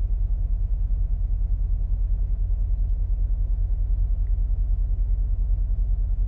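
Semi-truck engine idling, heard inside the cab: a steady low rumble with a fast, even pulse.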